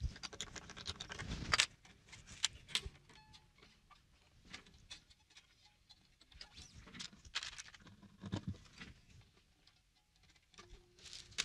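Handling noise from restringing a 12-string acoustic guitar: irregular clicks, rustles and scrapes as steel strings are pulled through and threaded onto the tuning posts, busiest in the first second and a half.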